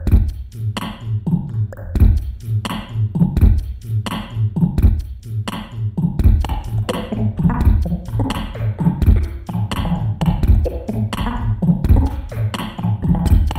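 Beatboxed beat in an odd time signature through a PA: a repeating pattern of deep kick-drum thumps and sharp hi-hat and snare clicks, looped on a live looping rig, with more vocal layers building in from about halfway through.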